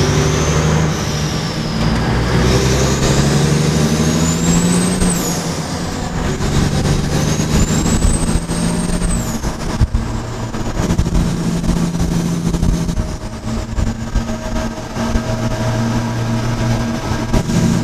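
Kenworth W900 truck's diesel engine pulling, heard from inside the cab. The engine's pitch climbs and then drops back twice, about five and nine seconds in, as it shifts up through the gears. A high whistle rises with the engine and falls at each shift.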